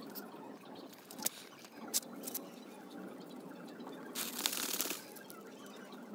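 Wooden stick scraping and poking into the soil of a tree's root ball, loosening crumbly soil from among the roots: a few sharp clicks, then a scratchy crumbling rustle about four seconds in.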